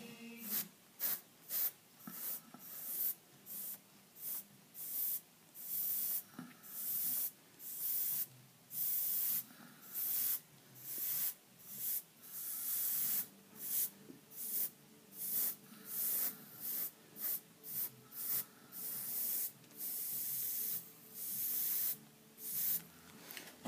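Airbrush spraying paint in short, quickly repeated bursts of hiss, roughly one to two a second, some held a little longer.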